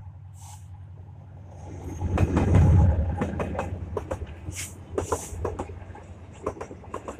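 Diesel locomotive of a container freight train passing close by: its engine rumble swells to the loudest point about two seconds in, then the container wagons roll past with a run of sharp clicks and knocks from the wheels over the rail joints.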